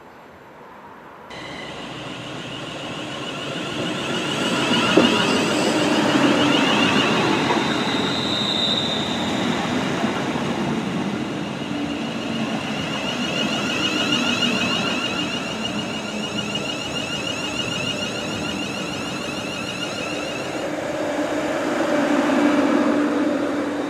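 London Northwestern Railway Class 350 electric multiple unit moving slowly past at close range, its wheels and motors giving a steady high whine over the running noise. The noise swells again near the end.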